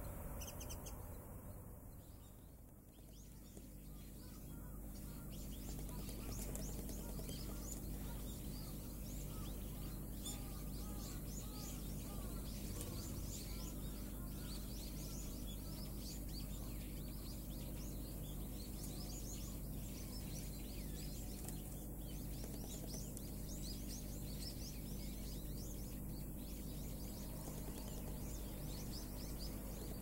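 Wild birds chirping, with many short high chirps repeating throughout, over a steady low hum.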